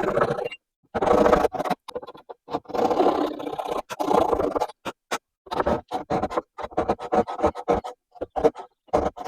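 Handsaw cutting wedge slots into the tenon of a wooden mallet handle: rasping saw strokes with short breaks between them. The strokes are long in the first half and become short and quick in the second half.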